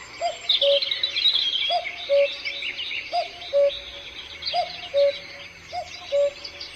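Recorded birdsong played through a Roffie white noise sound machine's small speaker: many birds chirping, over a two-note cuckoo call, high then low, that repeats about every second and a half.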